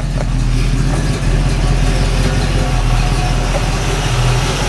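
1970 Ford Mustang Mach 1's V8 idling steadily through its mufflers, just run to blow dust out of them after the car sat for a while.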